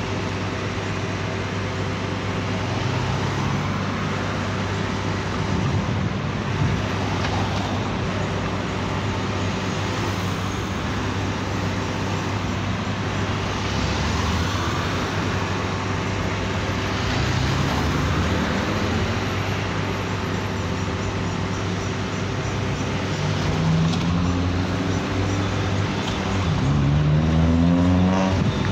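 Road traffic at a city intersection: a steady low engine hum, with cars pulling away and their engine pitch rising several times. The loudest is a car accelerating close by near the end.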